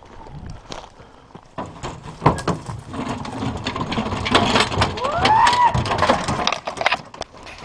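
Footsteps crackling through brush and dry leaves. About five seconds in, a man gives one rising-and-falling 'woo' whoop to urge the hunting dogs on.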